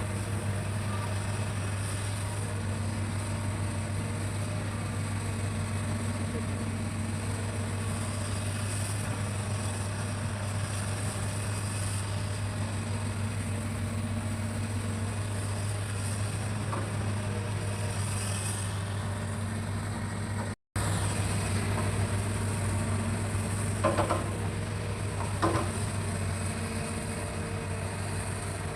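Hitachi excavator's diesel engine running steadily with a constant low drone. It cuts out for an instant about two-thirds of the way through, and two short knocks come near the end.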